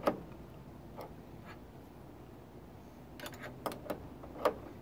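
Light metal clicks and taps of an adjustable wrench and screwdriver being set on the alternator pulley nut and pulley of a VW 1600 engine: one click at the start, one about a second in, then a quick cluster of clicks and a few single taps towards the end.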